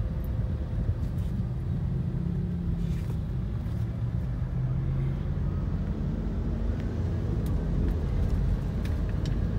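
Mitsubishi Pajero Sport heard from inside its cabin, driving off through slow city traffic: a steady low engine hum and road rumble.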